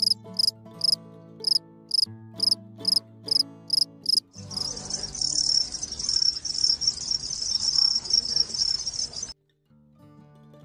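Crickets chirping: short separate chirps, about three a second, for the first four seconds, then a dense continuous chorus of many crickets chirring together, which cuts off suddenly about nine seconds in.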